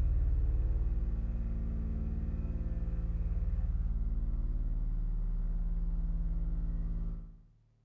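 Low, sustained drone of many steady tones stacked together from an abstract sound-art piece. It fades away about seven seconds in.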